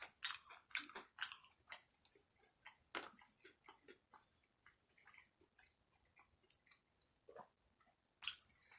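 A person chewing food close to the microphone: a run of short, wet mouth clicks and smacks, thickest in the first couple of seconds, sparse in the middle, with a louder cluster near the end.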